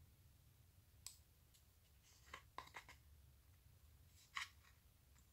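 Faint small clicks and taps of a steel-shanked diamond grinding bit and its hard plastic storage case being handled: one click about a second in, a quick run of clicks between two and three seconds, and the loudest tap a little after four seconds.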